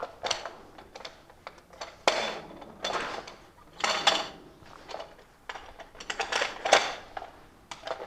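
Airsoft guns firing short rapid bursts of clicking shots, several volleys a second or so apart, with scattered single clicks between them.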